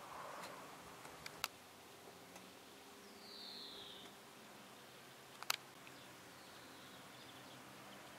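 Quiet outdoor background with a bird's high whistle falling in pitch, about a second long, about three seconds in. Two sharp clicks, the loudest sounds, come about one and a half and five and a half seconds in.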